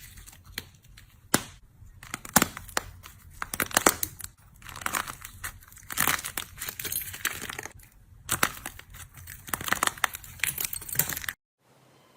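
Slime being squeezed and pressed by hand, giving irregular crackling, crinkly pops and squelches in uneven swells; it cuts off suddenly near the end.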